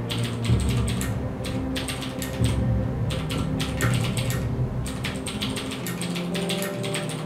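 Fast touch typing on a Ducky Shine 3 mechanical keyboard with clicky Cherry MX Blue switches: rapid keystroke clicks in bursts, broken by short pauses.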